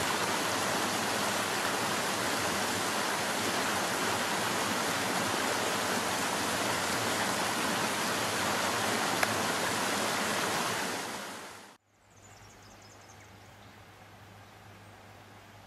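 Shallow creek water rushing and rippling over rocks, a steady rush that fades out about eleven seconds in. A faint steady hiss with a low hum follows.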